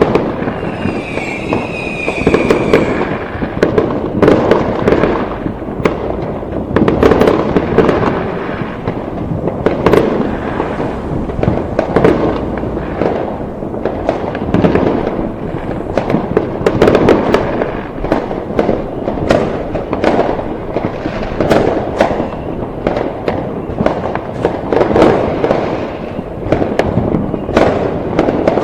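Fireworks going off in a dense, continuous barrage of bangs and crackling, with a high whistle in the first few seconds.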